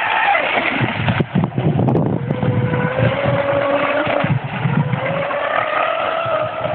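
Electric RC speedboat's Leopard 3674 2200kv brushless motor whining at speed, driving an Octura M445 propeller. The whine drops in pitch over the first couple of seconds, holds, then climbs slowly again near the end. A patchy low rumble runs underneath.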